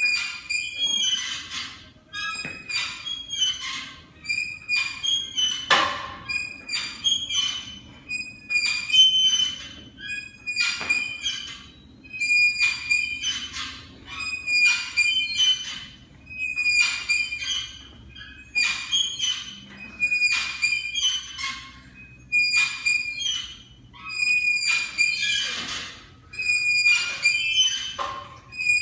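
Pec deck machine squeaking with each repetition as its arms swing closed and open again: a high-pitched squeal that comes back about every two seconds.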